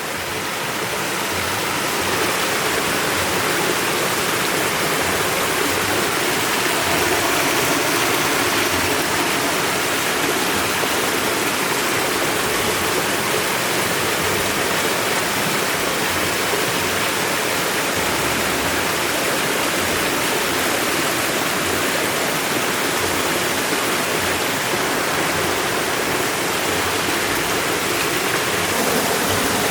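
River water rushing steadily in an even hiss.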